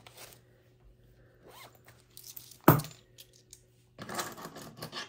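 Cash and savings materials being handled: scattered light clicks, one sharp clack about two and a half seconds in, and a stretch of rustling with a zip-like sound near the end.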